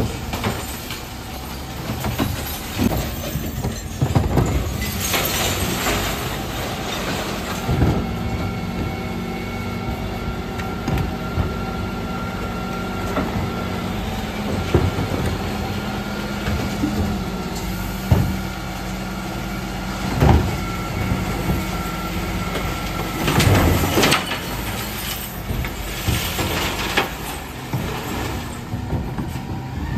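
Dennis Elite 6 refuse truck running with a steady mechanical whine from its engine and bin-lifter hydraulics, broken by repeated clatters and bangs as wheelie bins are lifted and tipped and recycling drops into the hopper.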